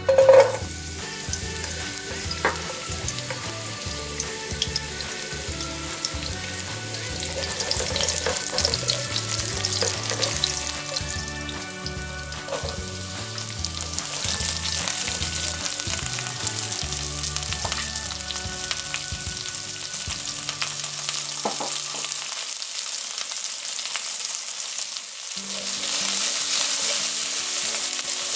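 Sliced garlic, then sliced onion, sizzling in hot oil in a nonstick pan while being stirred with a silicone spatula. The sizzle jumps sharply just as the garlic goes into the hot oil.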